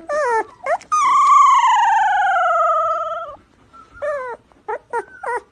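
A cat meowing: two short meows, then one long wavering yowl that slides down in pitch, then a few more short meows.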